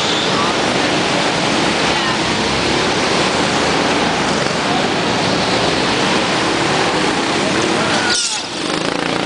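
Several go-kart engines running together on an indoor track inside a large metal building, a dense steady noise that dips briefly near the end.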